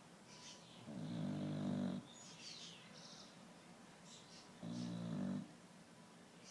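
A sleeping bulldog snoring: two snores, the first about a second long and the second about half a second, roughly three and a half seconds apart.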